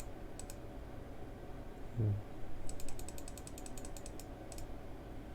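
Small clicks of computer input while scrolling through code: a few single clicks near the start, then a quick, even run of about fifteen clicks, roughly eight a second, beginning a little under three seconds in, over a low steady hum.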